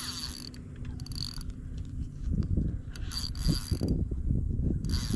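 Spinning reel's drag buzzing off line in short spurts as a hooked redfish pulls, with low knocking and rumbling from handling the rod.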